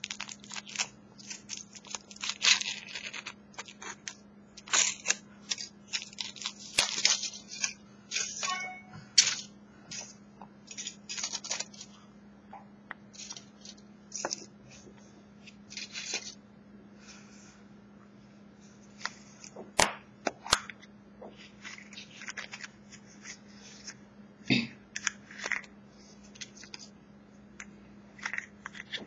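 Foil wrapper of a Kinder Surprise chocolate egg crinkling and tearing in irregular bursts as the egg is unwrapped and opened, busiest in the first dozen seconds, then sparser, with two sharp clicks about twenty seconds in.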